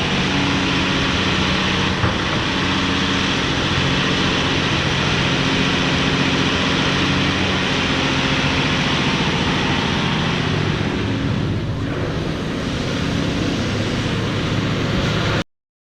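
Cat 349F excavator's diesel engine running steadily under working load, with hydraulic and fan noise over it; the sound cuts off suddenly near the end.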